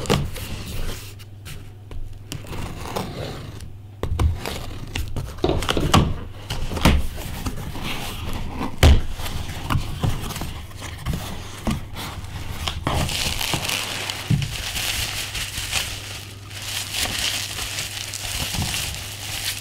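A cardboard shipping box being opened by hand, with scattered knocks and scrapes of the flaps. From about thirteen seconds in, plastic bubble wrap crinkles steadily as the wrapped package is handled and lifted out. A steady low hum runs underneath.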